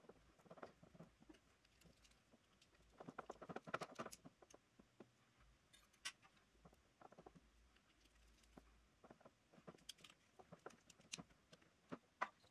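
Faint clicks and scratchy rustles of hands handling electrical leads and spade connectors at a table saw's switch terminals, busiest about three to four seconds in, with a few sharper clicks near the end.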